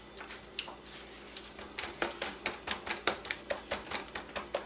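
Hands patting and rubbing dry seasoning onto a raw beef rib roast in a disposable aluminium foil pan: a run of light slaps and foil crinkles, settling into about four taps a second from about two seconds in.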